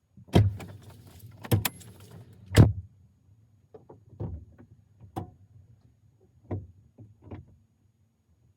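A run of sharp knocks and clicks of hard parts being handled during a car dash install: three loud knocks in the first three seconds, then lighter clicks every second or so.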